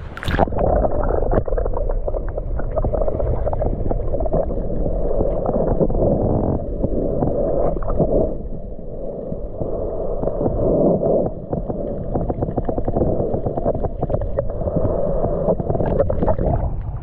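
Muffled, steady rushing and gurgling of water picked up by a camera held under the surface, the high end cut off by the water.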